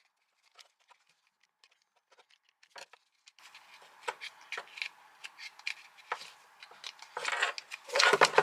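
Hands taking apart a cordless angle grinder, pulling a part out of its housing: scattered small clicks at first, then a busier run of scraping and clicking from about three seconds in, loudest near the end.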